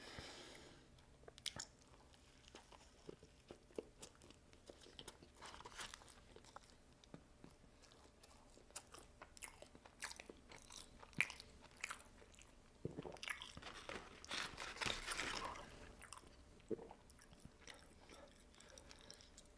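A person eating close to the microphone: quiet bites and chewing of crunchy food, with scattered small mouth clicks and a louder stretch of crunching about thirteen to sixteen seconds in.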